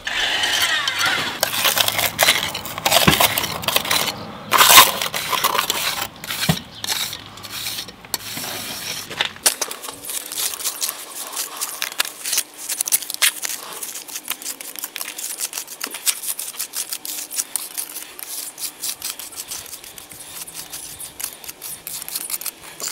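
Steel jointing iron scraping and pressing sandy, earth-moist trass-cement mortar off a metal hawk into the joints of a slate rubble wall. It makes a run of short gritty scrapes and clicks, busier and louder in the first half.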